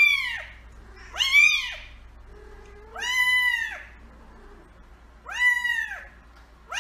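Kitten meowing repeatedly: five separate meows, each rising then falling in pitch, a second or two apart.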